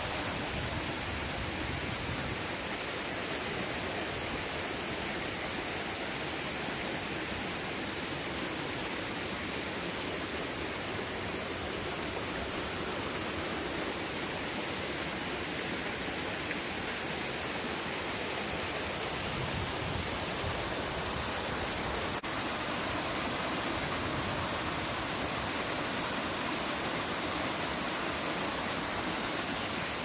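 Water from a small waterfall cascading over rock ledges, a steady, even rushing.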